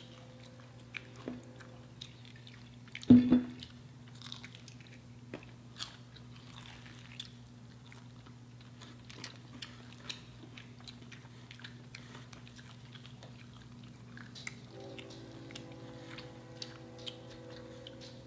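Close-up mouth sounds of someone eating crispy spicy fried chicken: crunchy bites and chewing, with one much louder thump about three seconds in. A low steady hum runs underneath.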